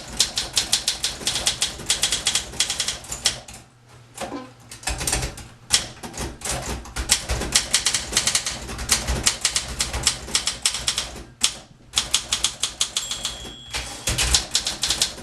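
1961 Olympia SM 4 portable typewriter being typed on at speed: fast runs of sharp keystroke clacks, broken by two short pauses. About 13 s in, a short bell ring sounds, the typewriter's end-of-line margin bell.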